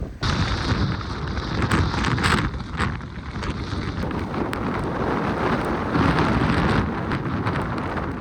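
Blizzard wind buffeting the microphone: a heavy, uneven low rumble with a hiss of wind and blowing snow over it, in short gusts.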